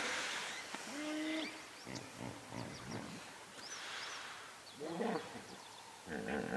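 Faint animal calls: a few short pitched cries, with scattered short high chirps.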